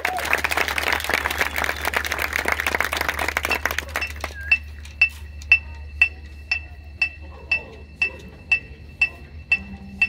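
Crowd applauding, fading out after about four seconds. Then one high bell-like note is tapped evenly about twice a second on the band's pit percussion.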